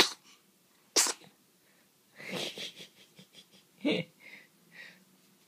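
A young baby sneezing: sudden, short sneezes, a sharp one right at the start and another about a second later, then a noisier one and softer breathy sounds.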